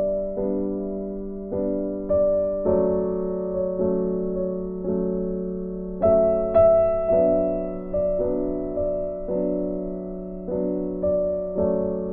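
Background music: slow, gentle piano music, its notes struck about once a second and left to ring and fade.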